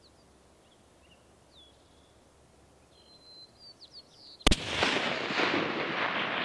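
Faint bird chirps, then a single rifle shot about four and a half seconds in, its echo rolling on for a couple of seconds.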